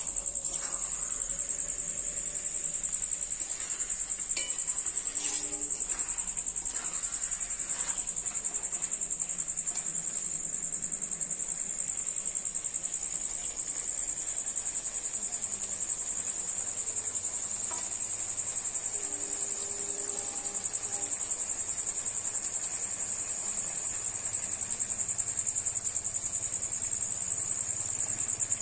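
An insect, most likely a cricket, trilling in one continuous, steady, high-pitched trill. A few faint scrapes in the first several seconds fit a spatula stirring curry in a metal kadai.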